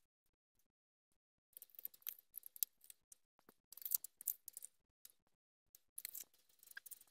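Faint crinkling of plastic film as plastic-wrapped bánh ít lá gai cakes are picked up and set down on a wooden tray. It comes in three short spells after a quiet first second and a half.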